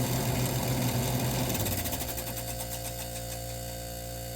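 1978 Gibson Air Sweep window air conditioner running on low cool: a steady hum from its Tecumseh AE reciprocating compressor, with a fast rhythmic rattle from the condenser fan rubbing against its shroud as the unit shakes, a fan the owner thinks may need balancing. The sound drops a little in level about two seconds in and then holds steady.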